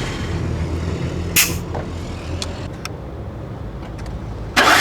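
Car engine compression test with the spark plugs out: a short hiss about a second and a half in, typical of pressure being let out of the compression gauge, then a few small clicks, and near the end the starter abruptly begins cranking the engine again.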